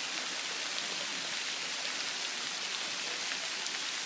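Fountain jet spraying water that falls back into a shallow pool, a steady rain-like hiss of splashing.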